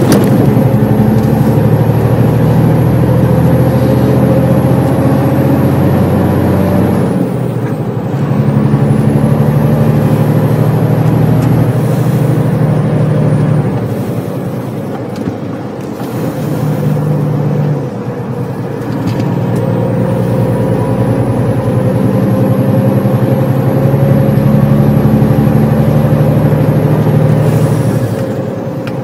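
Iveco Stralis 450 truck's six-cylinder diesel engine pulling uphill under load, heard from inside the cab. A few times the engine note drops away briefly and then picks up again.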